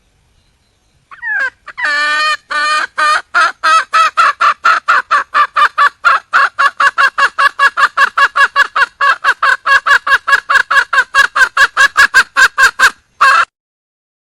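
A junglefowl hen calling for a mate. After a short gliding note about a second in, there is a long run of loud, evenly repeated clucking notes that speed up to about four or five a second, and one last longer note near the end.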